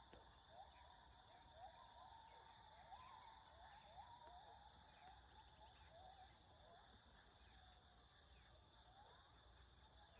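Faint natural ambience: a steady high insect drone, with a run of short rising chirps about two a second that die away after about seven seconds.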